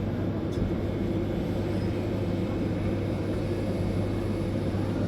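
Fresh orange juice vending machine running its squeezing mechanism, crushing oranges: a steady, low mechanical drone.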